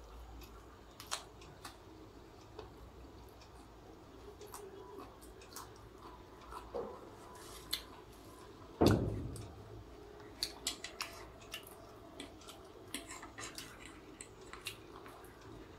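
Close-up eating sounds: chewing with small wet mouth clicks, a single thump about nine seconds in, then a metal fork clicking against the plate as noodles are twirled.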